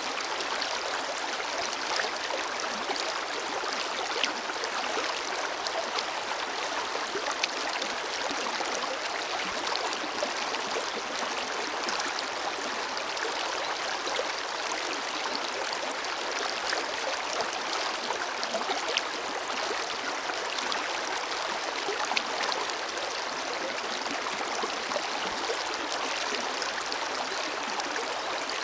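Forest river flowing steadily over rocks, a continuous rush of water with small splashes and gurgles.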